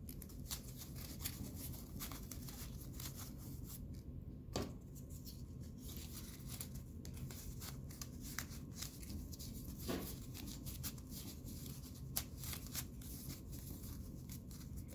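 Flattened cardboard strips from paper towel and toilet paper rolls being threaded through a woven basket and bent by hand, giving faint scratchy rubbing and many small clicks over a low steady hum. A few sharper clicks stand out about four and a half, ten and twelve seconds in.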